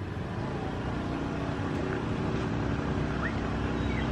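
Diesel locomotive's engine running as it approaches slowly, a steady drone that grows a little louder from about a second in.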